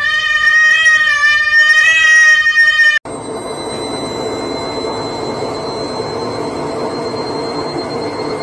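An animal's long, loud wail that rises at the start, holds steady for about three seconds and cuts off abruptly. Then a Candy front-loading washing machine runs with a steady hum and a faint high whine.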